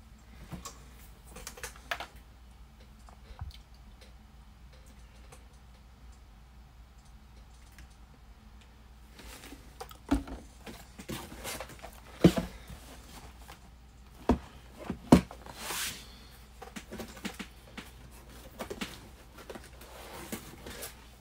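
Light clicks and taps of things being handled on a desk: sparse at first, then a busier run from about nine seconds in with several sharp knocks as a sealed trading-card box is set down on the playmat.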